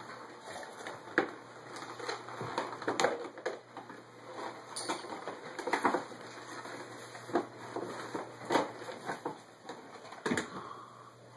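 Gift wrapping and packaging crinkling and rustling as they are pulled open by hand, with many irregular sharp crackles.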